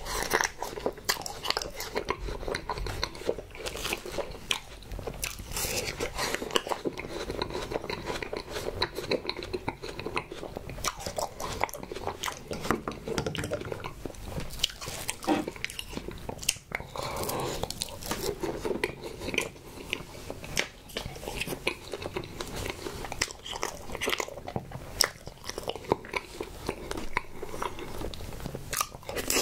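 Close-miked biting, crunching and chewing of a frozen strawberry ice pop and creamy strawberry desserts, with many short, sharp mouth clicks.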